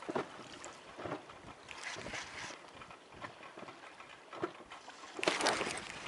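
Strong gusty wind buffeting the microphone over choppy water slapping against a small boat, with a louder burst of noise just after five seconds in.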